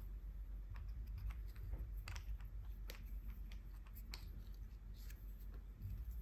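Faint, scattered small clicks, taps and short scratchy strokes from handling gouache paint materials while swatching: tubes, caps, brush and paper.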